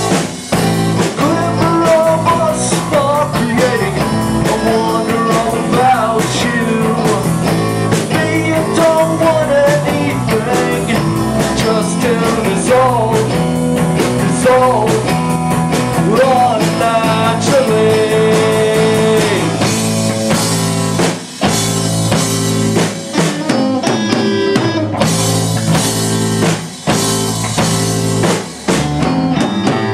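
Live rock band playing loud: electric guitars through amplifiers over a drum kit, with bending lead notes, and a few brief breaks in the last third.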